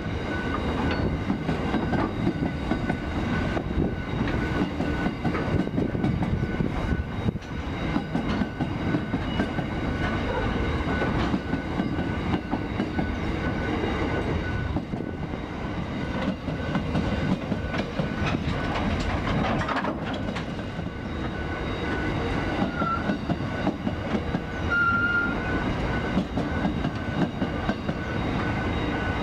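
Ore hopper wagons of a freight train rolling past close by: a steady rumble of steel wheels on rail with continual clickety-clack from the bogies passing over rail joints.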